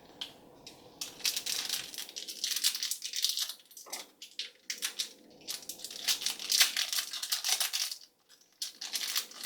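Plastic toy packaging crinkling and tearing in irregular bursts as a small packet is torn open by hand, from about a second in until near the end.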